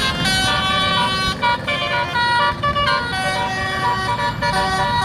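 Multi-tone telolet horn on a Persada Trans tour bus playing a quick tune. Several pitches sound together, and the notes change in steps every fraction of a second.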